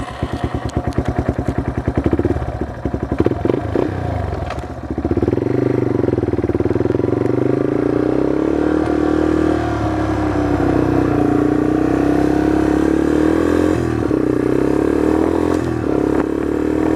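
Dirt bike engine carrying two riders, chugging in quick even pulses at low revs for the first few seconds, then pulling away into a steady run whose pitch rises and falls with the throttle.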